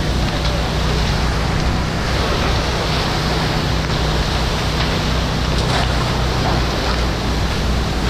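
Fire hose nozzle spraying a steady, loud rush of water onto smouldering debris, with a steady low engine hum underneath.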